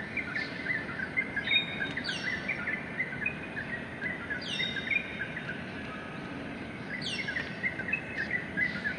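Birds calling: a high whistled call that sweeps downward comes three times, over a steady chatter of many short chirps.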